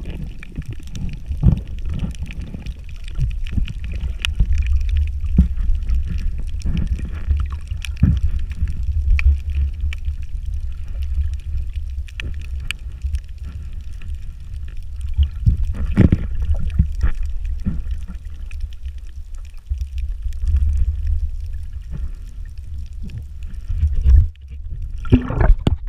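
Muffled sound of a camera held under the water: a steady low rumble of moving water, with scattered knocks and clicks against the housing.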